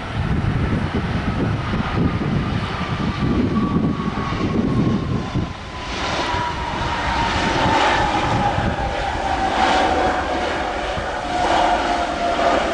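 Jet airliner's engines passing, their whine falling slowly and steadily in pitch, over a broad rushing roar. Gusts of wind rumble on the microphone in the first half.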